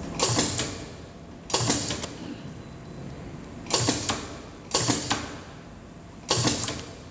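Alternating-current gantry spot welder running, its welding head coming down on battery nickel strip: five sharp clacks, each a quick double click, one to two seconds apart.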